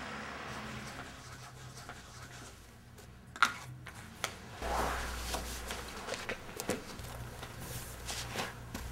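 Handling noises in a small room: a sharp click about three and a half seconds in, then rustling and a run of small clicks and knocks as clothes and small objects are handled.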